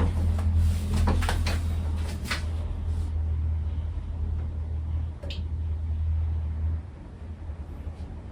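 TroposAir Tornado ceiling fan running with a steady low hum, with a few sharp clicks in the first couple of seconds. The hum cuts off abruptly about seven seconds in.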